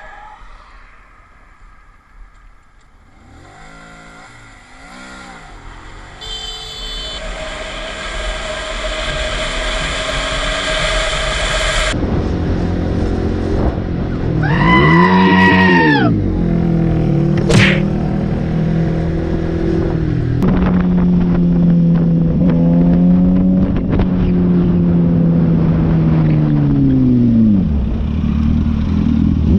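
Motorcycle engines heard from the rider's seat over wind noise, in separate rides that change abruptly partway through: the engine revs up and down, then holds a steady tone and falls away near the end as the bike slows. There is a brief high chirp about two-thirds of the way through.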